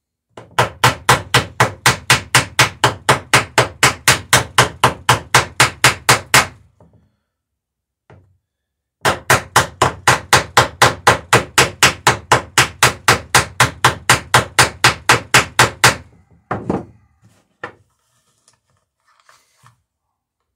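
Hammer peening over copper rivets in a wooden dory's planking. There are two long runs of quick, even blows, about four or five a second, with a pause of a couple of seconds between them. A heavier knock and a few light taps follow near the end.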